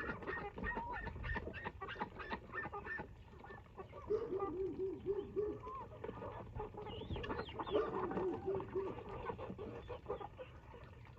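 Poultry calling at close range: chickens clucking, with two runs of short, quickly repeated calls, one a few seconds in and one after the middle. Scattered sharp clicks and knocks run under the calls.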